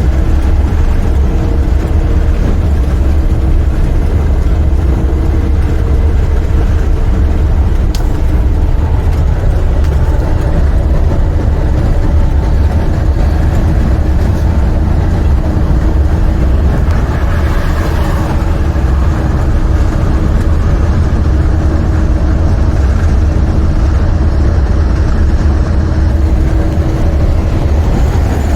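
Diesel semi truck with a MaxxForce 13 engine running steadily on the road, heard as a loud, constant low rumble with a steady engine hum. A brief swell of hiss comes about two-thirds of the way through.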